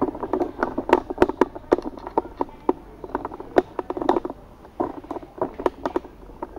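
Small plastic quadcopter parts being handled on a table: a rapid, irregular run of light clicks and taps, with some rustling between them.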